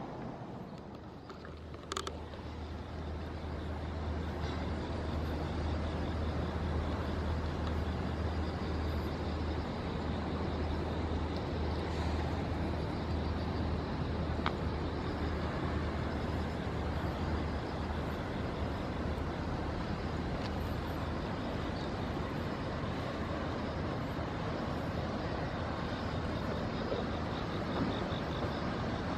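Steady rumble of road traffic, with a low hum that builds over the first few seconds and then holds. A single click comes about two seconds in.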